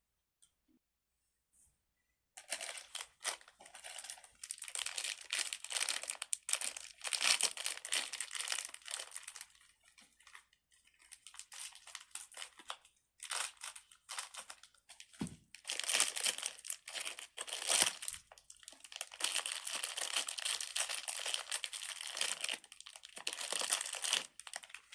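Plastic packaging crinkling as it is handled, starting about two seconds in and going on in long spells of rustling, with a quieter gap near the middle and one soft thump just after.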